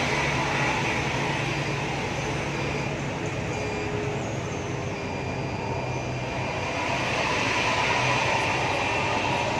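Diesel bus engines running steadily, heard from inside a coach's cabin while it follows closely behind another bus whose exhaust note is part of the sound. The noise eases a little midway and builds again near the end.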